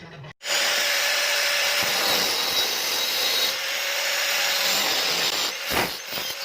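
A metalworking power tool running steadily under load with a harsh hiss and a faint steady whine. It starts abruptly about half a second in and dips briefly near the end.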